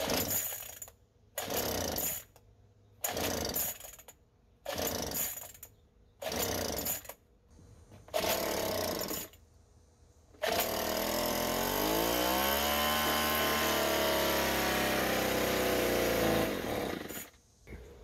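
Craftsman two-stroke gas leaf blower being pull-started: six tugs on the recoil starter cord about a second and a half apart. Then the engine catches about ten seconds in, runs for about six seconds with its pitch rising and falling, and dies. It fails to keep running, which the owner puts down to the air filter rather than the spark.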